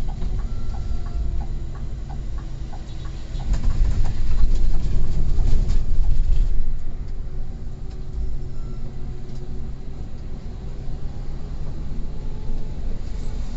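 Bus engine and road rumble with scattered rattles, growing louder for about three seconds around four seconds in.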